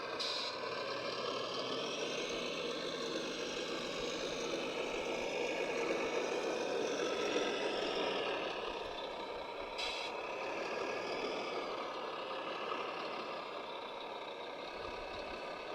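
Radio-controlled construction models running, with a steady mechanical whir and drone from their motors and gearing. There is a brief hiss near the start and another about ten seconds in.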